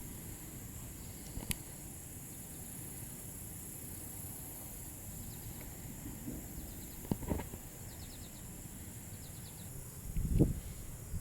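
Steady high-pitched insect chorus, crickets or similar, with a few faint short chirping trills around the middle. Near the end come a couple of dull low thumps.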